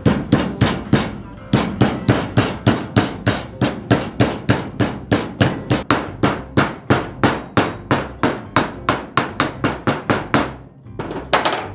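Hammer tapping an inner-bearing grease seal into a wheel hub, working evenly around its edge: a long run of quick, even strikes, about three a second, with a short pause about a second in and a last couple of taps near the end.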